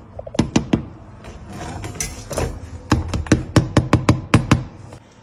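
A quick, uneven series of sharp knocks, thickest in the second half.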